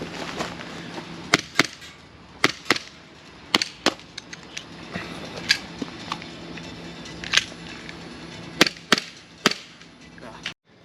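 Gas blowback airsoft pistol firing a dozen or so sharp shots, several in quick pairs about a quarter second apart.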